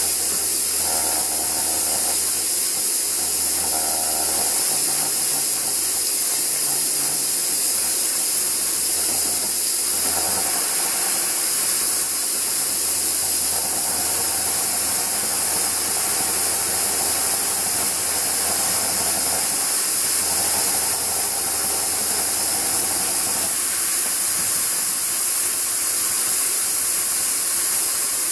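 Steady loud hiss of steam escaping from an Aster BR 52 live-steam model locomotive under pressure during its first steaming.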